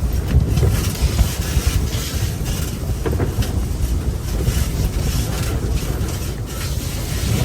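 Strong blizzard wind rumbling and buffeting against the microphone, with irregular sharp ticks and snaps through it.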